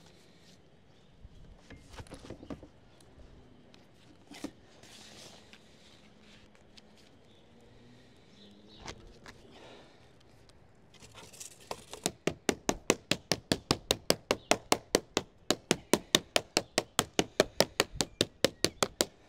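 Scattered light knocks of sheet lead and tools being handled, then a fast, even run of sharp tapping, about five strikes a second for the last seven seconds or so, from a lead dresser working sheet lead into shape.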